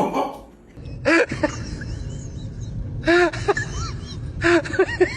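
Short, arching high-pitched animal calls: one about a second in, a quick run of three or four around three seconds, and another run near the end, over steady low background noise.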